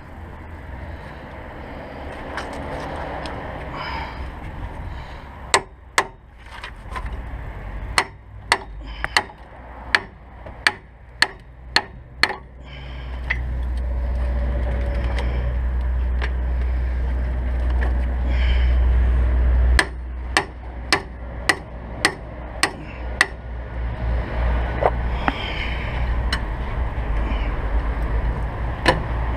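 Hammer striking metal in two runs of sharp single blows, about one to two a second, with a steady low drone between the runs.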